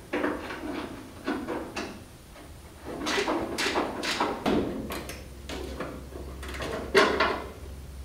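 Hand tools working on the hood hinge bolts of a 1972 Chevy C10: uneven metal clanks and rattles, with a sharp clank about seven seconds in.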